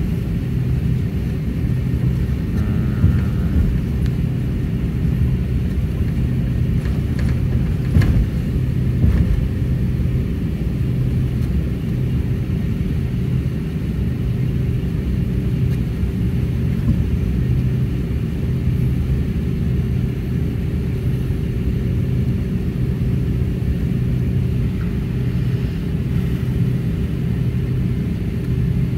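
Airliner cabin noise: a steady low drone of jet engines and airflow with a constant hum. A single light knock comes about eight seconds in.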